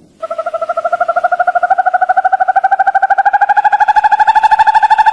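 An animal's call: one long, fast trill of rapid even pulses that rises slowly in pitch throughout.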